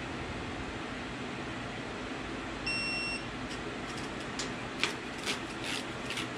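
Digital torque wrench giving one beep, about half a second long, as a ring gear bolt reaches its set torque, followed by a run of ratchet clicks as the wrench is swung back for the next pull. Steady background noise underneath.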